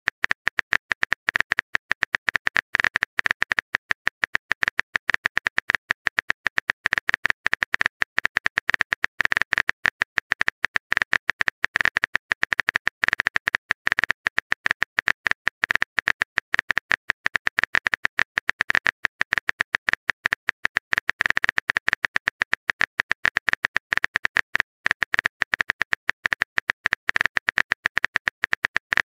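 Rapid, unbroken clicking of a phone-keyboard typing sound effect, as used in texting-story videos while the next message is being typed.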